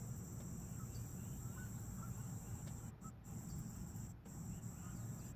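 Insects droning steadily at a high pitch over a low rumble, with a few faint chirps.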